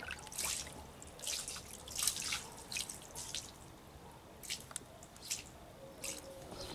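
Water sloshing and splashing in a tub as feet in knee-high wedge boots shift about in it, with irregular small splashes and drips.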